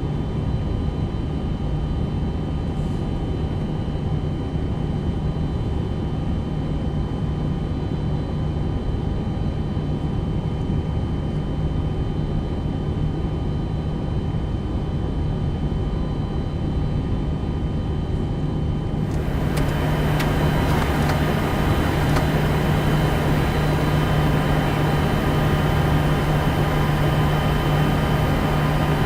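Steady machinery hum on a Boeing 747-400 flight deck before engine start, with a strong low tone and several fainter high tones. About two-thirds of the way through, a louder airy hiss joins and then holds steady.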